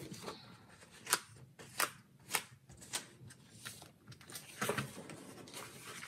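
Paper rustling and a series of sharp, separate clicks, about half a second to a second apart, as punched planner inserts are handled and pressed onto the discs of a disc-bound planner.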